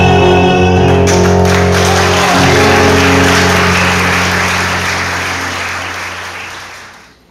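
Live music ends on a long held chord, and audience applause breaks out about a second in, carries on over the dying chord, then fades away near the end.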